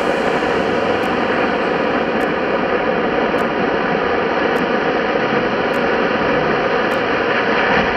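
Amateur-built H-class rocket motor firing on a test stand: a loud, steady rushing noise of its exhaust.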